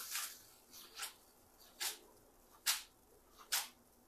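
Spaghetti being tossed in a nonstick wok-style pan, the pasta landing back in the pan with a short, soft wet swish five times, a little under once a second. A sizzle fades out in the first half-second.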